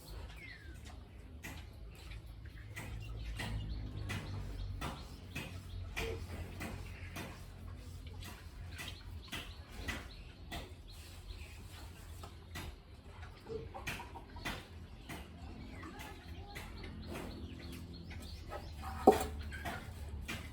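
Farmyard sounds: many scattered clicks and knocks over a low rumble, faint bird chirps, and one short, loud animal call near the end.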